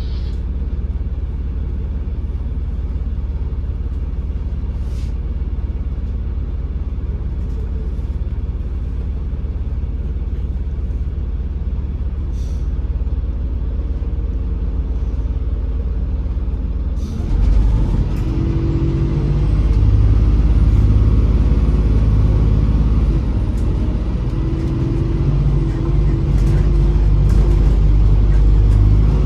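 MAZ-203 city bus heard from inside: a low, steady engine drone, then about seventeen seconds in the engine takes load and the bus accelerates, its note stepping up and down as the gears change.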